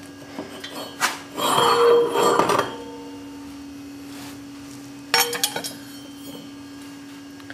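Steel ATV brake disc and hub being worked off a splined rear axle: a knock about a second in, then scraping and clanking with metallic ringing for a second or so. A little after five seconds the disc is set down with a short, ringing metallic clatter.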